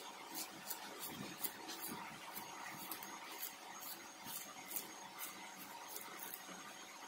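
Bamboo shoot being shaved into shreds against a fixed curved blade: a short, crisp scrape with each stroke, about two to three a second.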